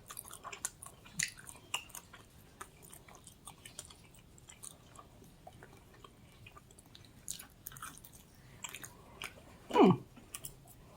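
Close-up chewing and biting of pepperoni pizza, with many small crunches and wet mouth clicks. Near the end there is one brief loud sound that sweeps steeply down in pitch.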